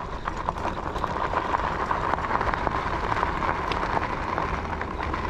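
Electric bike tyres rolling over a gravel trail: a steady crunching hiss dotted with small pops and crackles of stones. A low rumble and a steady high whine run underneath.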